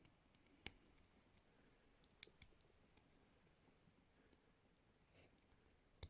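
Faint, scattered metallic clicks and ticks from a pick working inside the lock of Alcyon 5050 Fury handcuffs as they are picked open, with the sharpest click under a second in.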